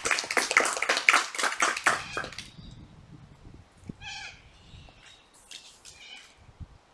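A small audience clapping, which stops about two and a half seconds in. Then a few short, high calls sound faintly, twice.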